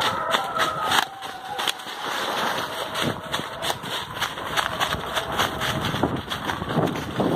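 Rustling and crackling of grass and brush with wind and handling noise on the microphone as someone moves through the undergrowth on foot. A short high call sounds in the first second.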